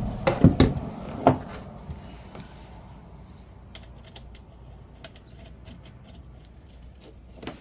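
Tools and parts being handled during washer repair: a few sharp knocks in the first second or so, then faint scattered clicks.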